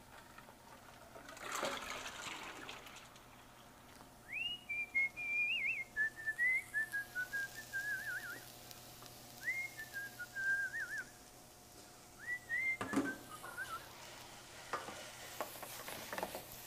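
A person whistling a tune in three short phrases, each sliding up into its first note and then stepping down with little trills. Food sizzles faintly in a sauté pan, with a few clicks of a wooden spoon stirring near the end.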